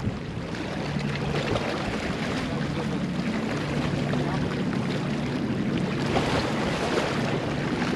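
Steady low motor hum over wind and water noise.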